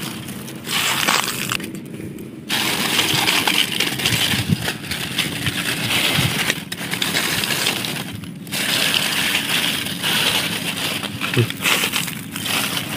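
Dry fallen leaves crackling and rustling as they are pushed aside by hand, in stretches with two short pauses.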